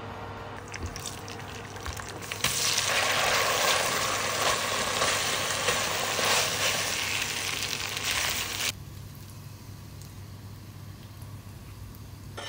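Sambal and petai beans sizzling as they fry in a pot: a loud, even sizzle that starts about two and a half seconds in and cuts off suddenly about two-thirds of the way through.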